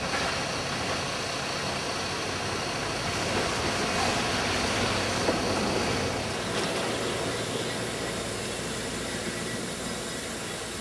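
Narrow-gauge steam locomotive standing at the station platform: a steady hiss of steam over a low running rumble.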